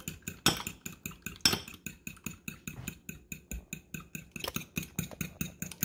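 A metal fork beating eggs in a glass bowl: a quick, even run of clinking taps of the fork against the glass, several a second.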